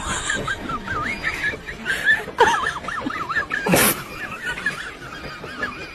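Husky-type dog whining, a run of high wavering cries that rise and fall in pitch, with one short loud noise a little before four seconds in.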